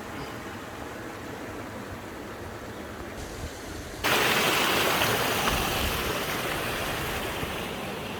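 Steady rush of falling water from a waterfall. It jumps suddenly louder about four seconds in, then eases off slowly.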